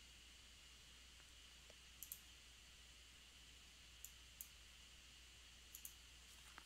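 About six faint computer mouse clicks in three groups, some in quick pairs, over near-silent room tone with a low steady hum.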